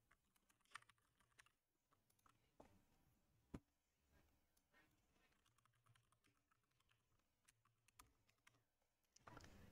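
Near silence with a few faint, irregularly spaced clicks, the clearest about three and a half seconds in.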